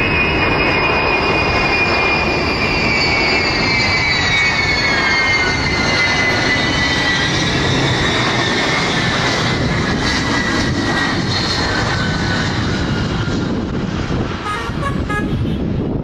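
Ilyushin Il-76's four turbofan engines roaring and whining as the jet lands, the whine dropping in pitch as it passes close by. Near the end the whine fades and a few short ticks come as the main wheels touch down.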